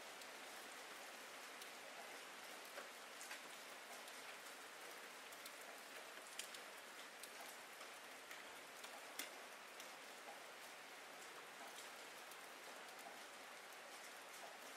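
Rain falling: a faint, steady hiss with scattered sharper ticks of single drops.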